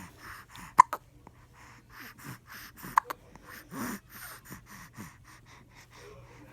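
A person hiccuping: two sharp, short hiccups about two seconds apart, with breathing between them.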